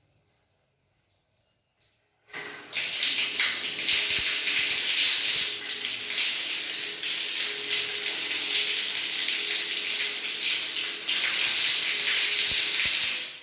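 Water running hard from a tap: it comes on suddenly about two seconds in, runs steadily, and stops abruptly near the end.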